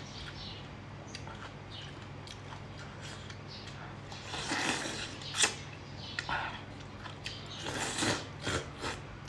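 A person eating close to the microphone: scattered chewing and mouth noises, a sharp click about five seconds in, and a few louder bursts near the end, over a faint steady low hum.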